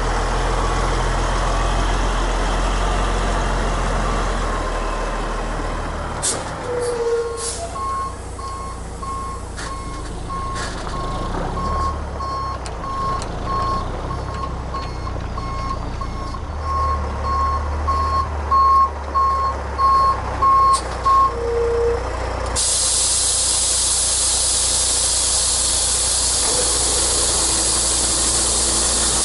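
Dump truck backing up with its diesel engine running and its reverse alarm beeping about once a second, the beeps growing louder as the truck nears. A few seconds after the alarm stops, a loud steady hiss starts and carries on to the end.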